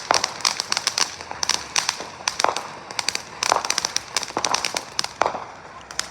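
Consumer fireworks going off in rapid succession: a dense run of sharp cracks and pops, several a second, with a few louder bangs among them.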